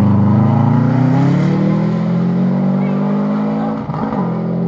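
Subaru Impreza WRX STi rally car's turbocharged flat-four engine accelerating hard away, its note rising over the first couple of seconds, with a short break about four seconds in at an upshift before it pulls on again.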